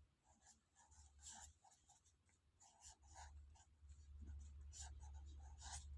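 Faint scratching of a pen writing on paper in short, irregular strokes, over a low hum that grows louder about halfway through.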